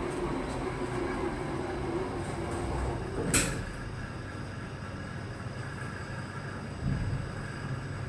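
Lift machinery running with a steady hum, and one sharp metallic clack about three and a half seconds in.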